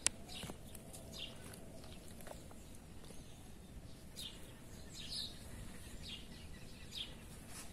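Faint bird chirps: a handful of short, high calls scattered over a low background hiss.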